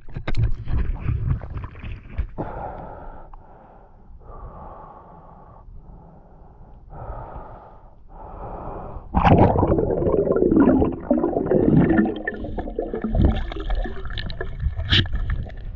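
A swimmer breathing in and out in a run of hissing breaths, each lasting about a second. About nine seconds in comes a sudden, louder rush of water with gurgling bubbles as he ducks under the surface.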